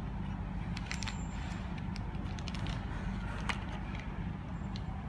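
Handling noise from unboxing a plastic-cased mouthpiece: a few scattered light clicks and taps, a small cluster about a second in and single ones in the middle and near the end, over a steady low rumble.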